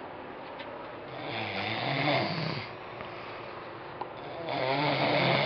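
A man snoring in his sleep: two loud snores about three seconds apart, each lasting more than a second, with quieter breathing between them.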